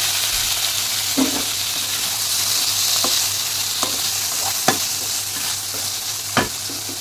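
Paneer cubes sizzling in butter in a frying pan, with a spatula knocking against the pan several times as the cubes are stirred and turned.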